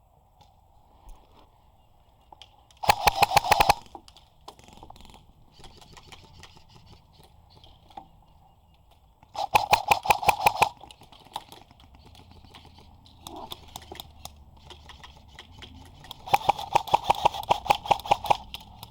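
Airsoft gun firing three full-auto bursts, each a rapid string of sharp clicks: a short burst about three seconds in, a longer one near ten seconds and the longest near the end.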